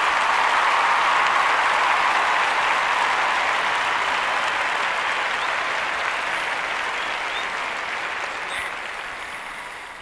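Applause from a crowd, clapping steadily and then fading away toward the end.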